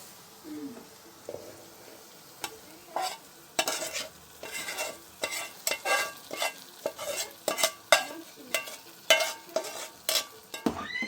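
A metal spoon stirring food in a metal pot, clinking and scraping against the sides at an irregular two or three strikes a second, with a faint frying sizzle beneath.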